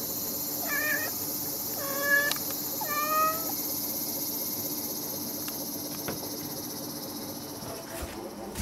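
A hungry stray brown tabby kitten meowing three times, short calls about a second apart, over a steady high-pitched hiss.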